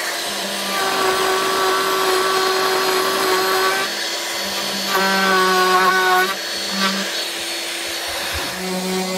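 Bosch cordless trim router with a roundover bit cutting a radius along the edge of an oak tabletop, with a dust extractor running on its hose. A steady motor whine and hum whose pitch shifts a few times as the cut goes on.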